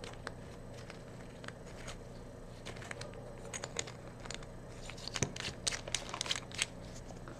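Faint handling noises of a small flashlight being turned over in the hands: light irregular clicks and taps, coming more often in the second half.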